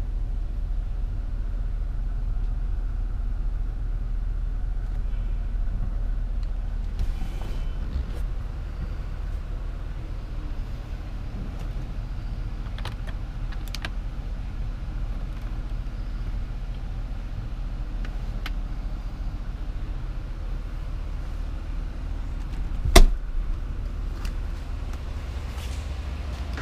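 Steady low rumble inside an SUV's cabin, with a few light clicks and one sharp click a few seconds before the end as a rear door is unlatched and opened.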